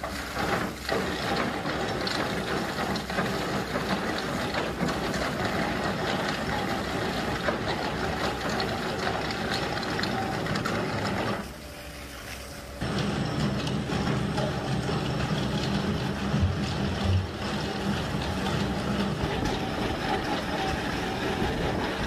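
Kemroc hydraulic drum cutter on an excavator, its pick-studded drums grinding through rock and concrete, with the excavator's engine running. A short quieter break comes about halfway, and after it the grinding continues over a steady low engine hum.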